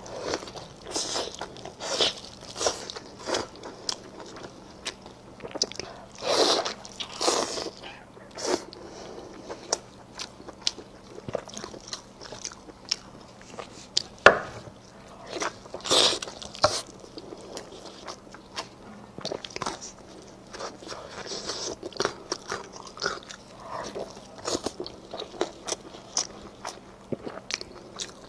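Close-miked eating of saucy braised ribs: irregular wet bites, tearing of meat from the bone, and sticky chewing and lip smacks, with a few louder bites a quarter and halfway through.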